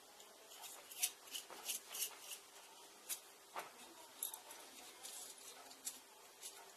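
Small metal parts of a model signal-box lever assembly clicking and tapping as they are handled and turned over by hand, in irregular light clicks.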